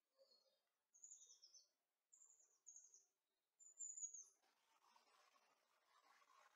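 Faint birdsong: a small bird singing four short, high phrases that fall in pitch, about a second apart. From about four and a half seconds in there is a faint, steady rushing noise.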